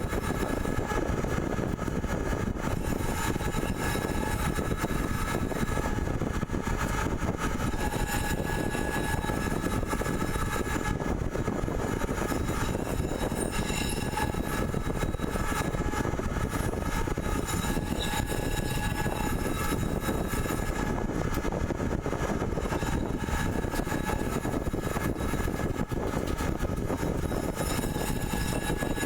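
CNC pipe threading machine running steadily: a constant dense machine noise with several faint steady whining tones.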